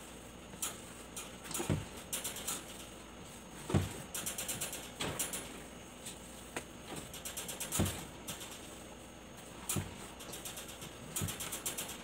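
Sticky ube bread dough being kneaded by hand in a stainless steel bowl: irregular squelching and crackling, with a few louder thumps as the dough is pressed and dropped against the bowl.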